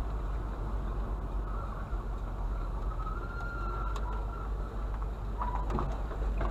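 A vehicle running, a steady low rumble with noise, a faint thin whine through the middle and a few clicks near the end.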